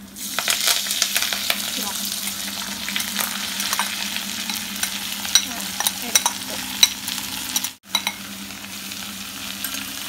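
Chopped onions, ginger, chillies and tomatoes sizzling in hot oil in an iron kadai, stirred with a spoon that scrapes and clicks against the pan. The sound cuts out for a moment about eight seconds in.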